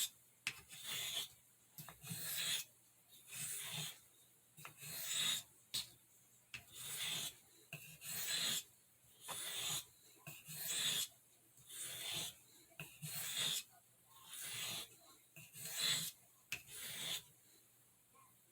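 Pocketknife spey blade drawn across an Arkansas sharpening stone in light strokes, a scrape about every second, stopping about a second before the end; light pressure to take off the burr.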